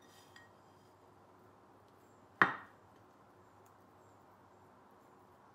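A bowl set down on a wooden chopping board: one sharp knock about two and a half seconds in that dies away quickly, with only faint room noise around it.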